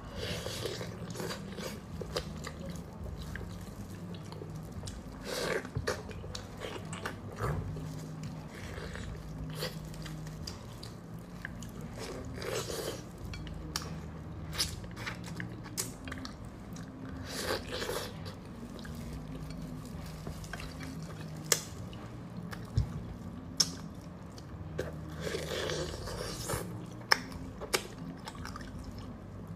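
Close-up mouth sounds of a person eating sauce-braised chicken: wet chewing and sucking at the meat on the bones, with many sharp smacks and clicks and a few louder wet slurps.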